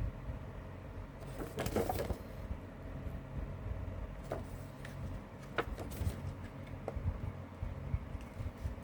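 Hands handling a CD case and its contents: a short flurry of rustling and clicking about a second and a half in, then several separate sharp plastic clicks, over a steady low hum.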